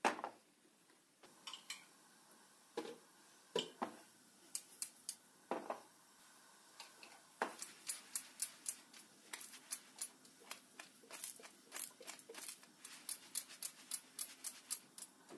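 A thin crepe frying in a pan on a gas hob: scattered sharp ticks and crackles, with a few louder knocks in the first half and a dense run of several ticks a second from about halfway through.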